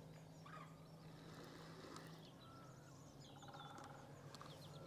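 Near silence with faint bird chirps and calls, and a faint steady low hum.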